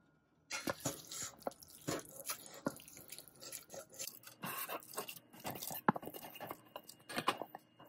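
Wooden spoon scraping soaked sago out of a stainless steel bowl into a pot of jaggery syrup: repeated scrapes and clicks of wood against metal, with wet squelches as the sago drops in, starting about half a second in.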